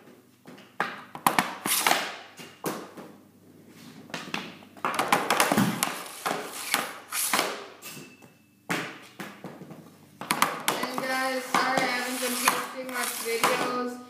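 Hockey snap shots taken with an Easton Synergy EQ50 stick off a shooting board: a string of sharp cracks and clacks as the blade slaps the board and puck and the pucks hit the net and garage walls. A voice is heard in the last few seconds.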